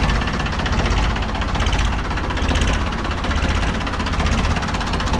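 Ford 3600 tractor's three-cylinder diesel engine running steadily through its original silencer, with no extra noise from the engine: the sound of a healthy, original engine.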